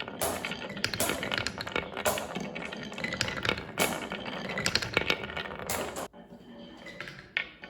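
Many marbles rolling and clacking along a wooden marble run track, a dense rattling clatter that drops off suddenly about six seconds in, leaving a few scattered clicks.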